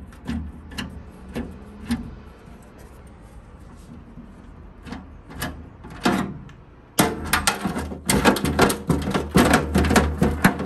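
Hand screwdriver turning out a screw and a loose metal bracket clicking and knocking against a cabinet's panels. The clicks are scattered at first, then turn into a dense, rapid clatter from about seven seconds in.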